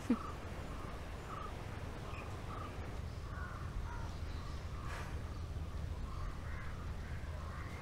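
Crows cawing in a run of short calls, about two a second at first and then more scattered, over a steady low rumble of background noise.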